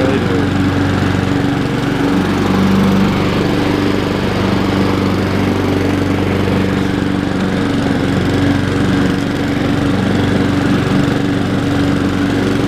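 Honda HRR216 walk-behind lawn mower's engine running steadily at constant speed while mowing grass.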